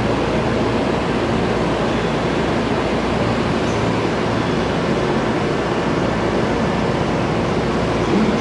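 JR West 323 series electric train standing at a station platform, its onboard equipment giving a steady, even noise with no distinct knocks or changes.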